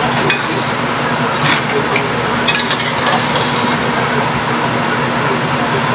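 A few clinks of a metal ladle against an aluminium stockpot and mussel shells as cooked mussels are scooped out, over a steady background hum and hiss.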